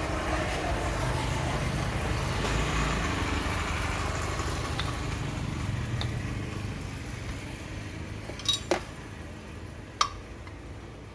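A steady mechanical rumble fading away over several seconds, then a few sharp metallic clinks near the end, like metal parts or tools being handled.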